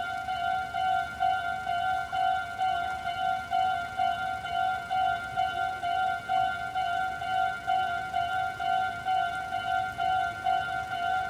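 Railway level-crossing warning bell ringing: an electronic two-tone ding repeating evenly about twice a second, steady throughout.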